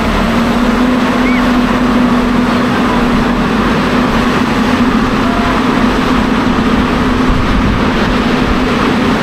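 An engine running steadily: a loud, even drone with a constant low hum.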